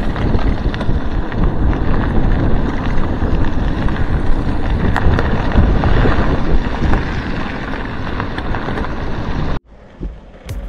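Wind buffeting a bike-mounted camera's microphone over the rumble of mountain bike tyres rolling on a gravel track. It drops off abruptly near the end.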